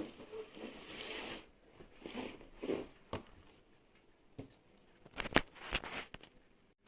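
A keyboard's box and packaging being handled: a brushing rustle, then several sharp clicks and light knocks.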